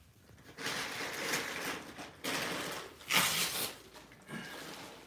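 Golden retriever puppies scuffling and wrestling on a blanket over a tile floor: several spells of rustling and scrabbling, starting about half a second in.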